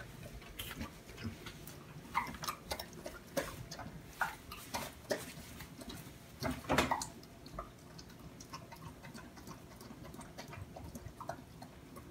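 A dog eating wet food from a plastic bowl: irregular clicks and smacks of chewing and licking, with a louder stretch about seven seconds in.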